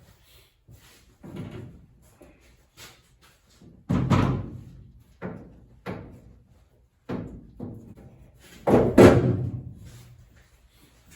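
Several heavy metallic clanks and thunks, each ringing briefly, from the steel body and windshield frame of a Willys Jeep CJ2A being worked on. The two loudest come about four seconds in and near the end.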